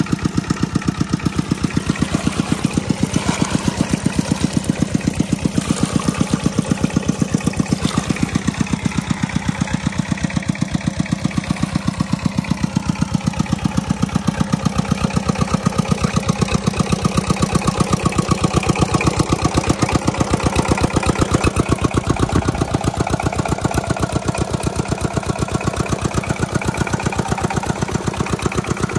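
Old single-cylinder diesel engine running steadily under load, belt-driving a water pump, with an even, rapid chugging beat throughout.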